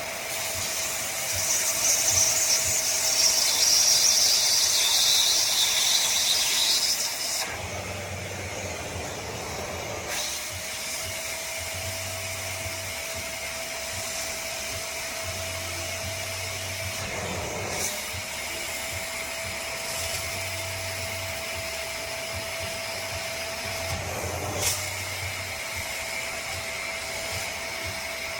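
BISSELL Little Green portable upholstery cleaner running, a steady motor whine with rushing suction air, louder for the first seven seconds or so. The motor pitch dips briefly three times, and a low hum comes and goes every few seconds.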